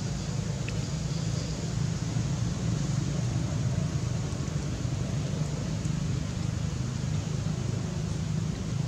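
Steady low rumbling background noise with a hiss over it and no distinct events.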